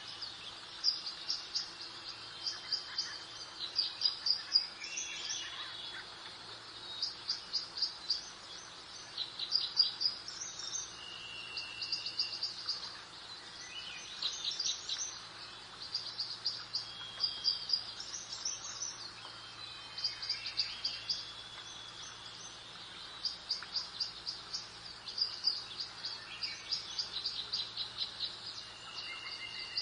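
Garden birdsong: several birds singing, mostly quick trills of repeated high chirps every couple of seconds, with a few longer whistled notes between them, over a soft steady background hiss.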